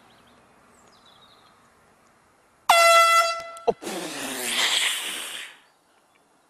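Handheld air horn blasted suddenly, one loud, piercing blast of about a second, going off as a golfer swings. A sharp click follows right after it, then a loud, rough noise lasting about a second and a half.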